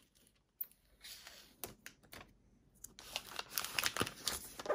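Plastic shrink wrap being picked open and peeled off a cardboard box: a few faint scratches and ticks, then from about three seconds in a dense crackling crinkle of the film.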